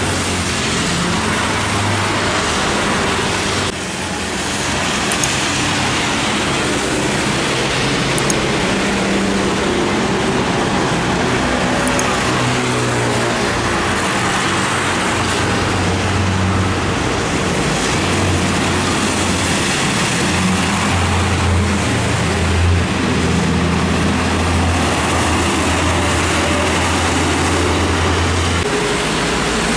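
Heavy diesel trucks passing on a wet road: a steady hiss of tyres through water over a low engine drone that swells and fades as each vehicle goes by.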